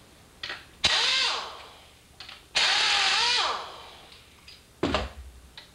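Pneumatic wrench with a 13 mm socket running in two bursts of about a second each, spinning out the two bolts of a Fiero seat's side hinge, its whine wavering and dropping as each burst ends. A thump follows near the end.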